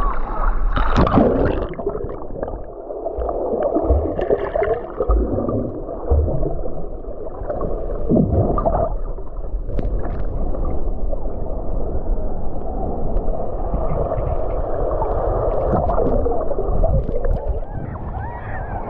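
Muffled gurgling and churning of sea water in the surf, steady throughout with a few sharper splashes.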